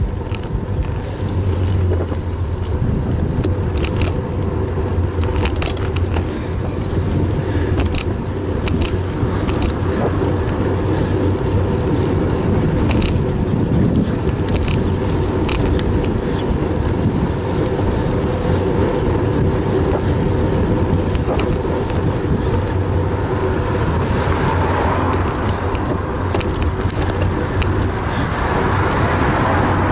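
Wind and road rush on the microphone of a camera mounted on a moving road bike at around 20–28 km/h, a steady low rumble with scattered small clicks and knocks. The rush grows hissier near the end.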